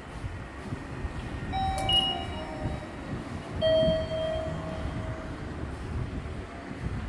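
Train rumbling at a station, with two short high tones about two seconds apart and a sharp click just before the first one ends.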